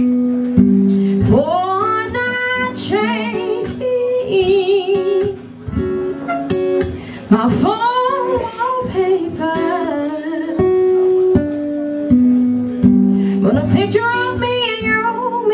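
A woman singing a slow ballad over a strummed acoustic guitar, with long held notes that waver in pitch.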